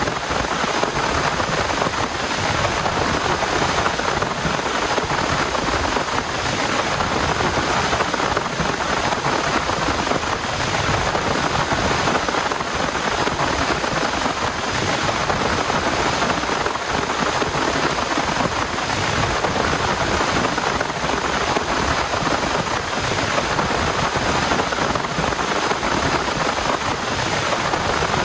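Heavy rain falling steadily, a dense even patter with no let-up.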